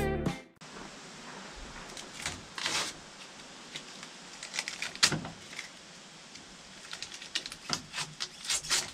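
Scattered light clicks, rubs and rustles of hands handling the excavator's painted travel levers and the paper and plastic masking around them, with a denser run of clicks near the end.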